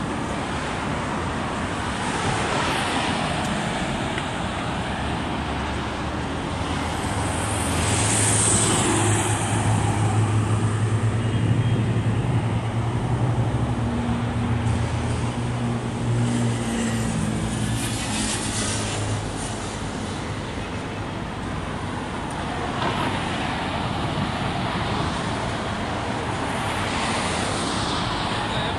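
Road traffic: cars passing by one after another, each swelling and fading as it goes past, with a steady low engine hum under it through the middle stretch.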